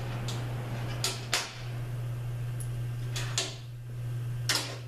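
A few sharp metal clicks and clinks of hand tools and fittings as the cooler lines are loosened and taken off an automatic transmission, over a steady low hum.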